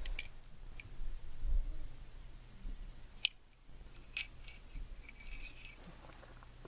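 Light handling noises from the revolver barrel and a wet cleaning patch: scattered soft clicks and rustles, with one sharper click about three seconds in.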